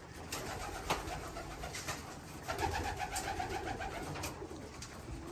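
Domestic racing pigeons cooing in the loft, two drawn-out calls in the middle, with a few sharp taps scattered through.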